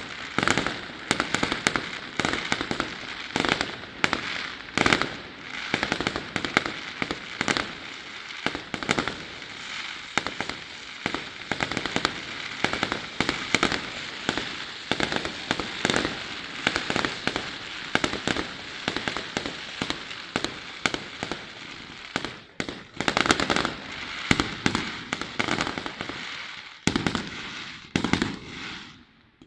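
Aerial fireworks display: a dense, unbroken barrage of loud bangs and crackling shell bursts, with short lulls near the end.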